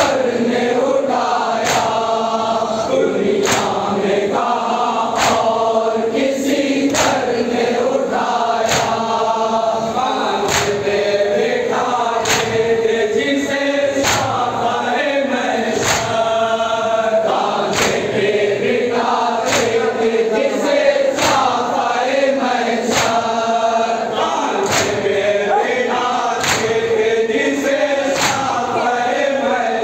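A group of men chanting a noha (mourning lament) in unison, with a steady beat of hands striking chests (matam) just over once a second.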